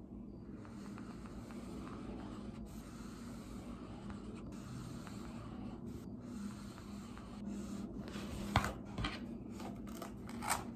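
Faint room hum, then a highlighter marker scratching across a book page in a few short strokes near the end.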